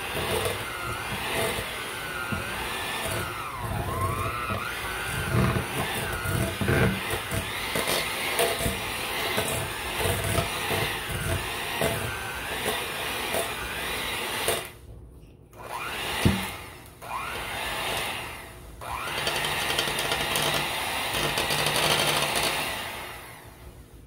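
Electric hand mixer beating a very stiff cookie dough in a stainless steel bowl: the motor's whine wavers up and down as it labours, with knocking from the beaters against the bowl. It drops out briefly about two-thirds of the way through, runs again, and shuts off just before the end.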